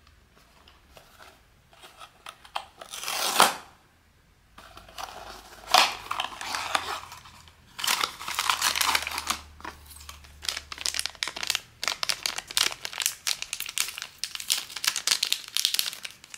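Blind-box packaging being torn open by hand: one long tear about three seconds in, then a long run of crinkling and rustling as the wrapper is handled.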